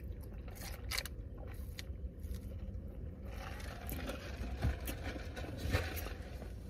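Paper burger wrapper rustling and crinkling as it is opened, starting about three seconds in, after a couple of light knocks about a second in, over a steady low hum.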